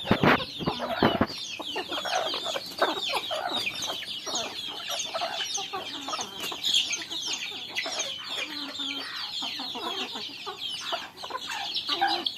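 A flock of chickens clucking and calling over one another: many short overlapping calls with no pause.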